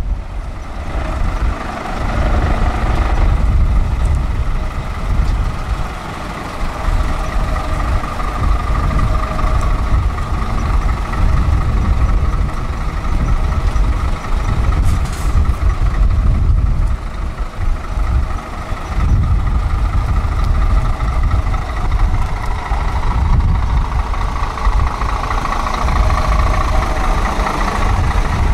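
Heavy truck diesel engines running at low speed and idling close by, a steady low rumble.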